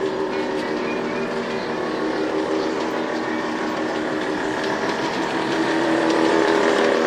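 Electric model locomotive of a large-scale food-delivery model railway running on its track, a steady motor whine over the rumble of wheels on rails, growing louder near the end as it approaches.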